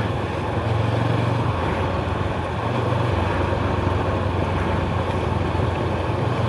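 Macbor Montana XR5 510 motorcycle engine running steadily at a low, even pitch while riding a gravel track, over a steady hiss of wind and loose gravel under the tyres.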